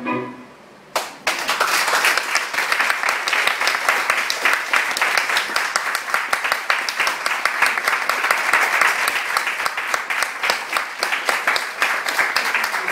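A room full of people clapping in applause: after a brief hush, the clapping starts suddenly about a second in and keeps up steadily.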